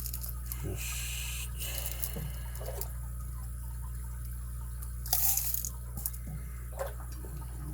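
Light hand-handling noises at a workbench: scattered small clicks and brief scraping rustles, the loudest rustle about five seconds in, over a steady low hum. They fit a search for a tiny lock pin spring that has sprung loose.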